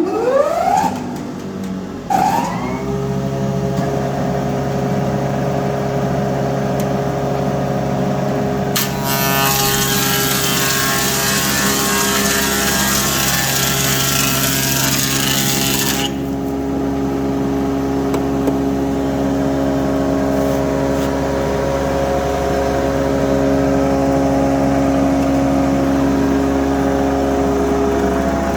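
SR4-1 thickness planer starting up: its electric motor spins up with a rising whine twice in the first couple of seconds, then runs with a steady hum. From about nine to sixteen seconds in, a board passes through the cutterhead with a dense rushing cutting noise, after which the machine runs empty again.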